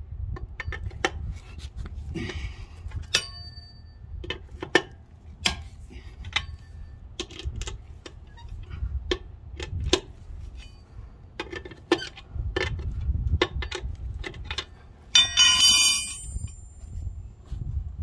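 Steel four-way lug wrench clicking and knocking on the lug nuts of a tractor's rear wheel as they are loosened. About 15 seconds in comes a loud ringing metallic clang, the cross wrench dropped onto the concrete floor.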